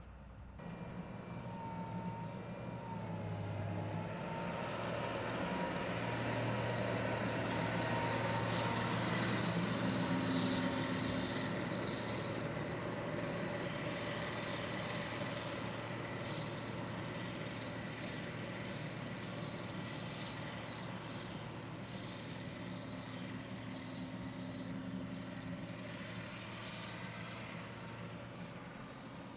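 Heavy harvest machinery running with a steady mechanical hum. It grows louder to a peak about ten seconds in, then slowly fades, as if passing by.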